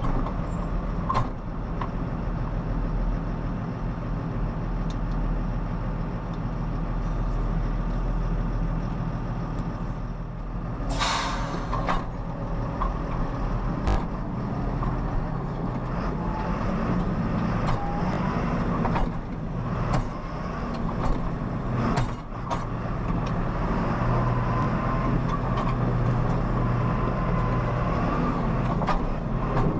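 Farm tractor's diesel engine running, heard from inside the cab as the tractor is driven, its note shifting up and down. There is a short loud hiss of air about 11 seconds in, and scattered clicks and knocks from the cab.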